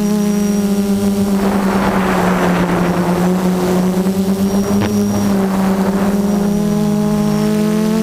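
F330 quadcopter's brushless motors and propellers buzzing steadily, picked up by the drone's own onboard camera. The pitch drifts slightly as the throttle changes. A rush of wind noise swells about a second and a half in and fades by about three and a half seconds.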